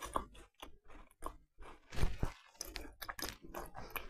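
A person chewing a mouthful of homemade rich biscuit: irregular crunching and mouth sounds, with the loudest crunch about two seconds in.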